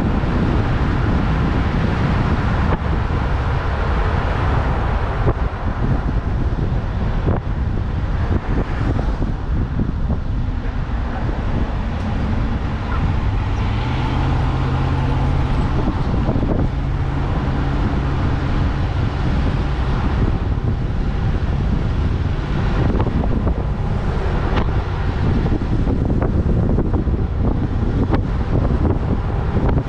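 Wind noise on the microphone and road noise from a moving vehicle, a steady rumble. A low steady hum rises above it for several seconds about halfway through.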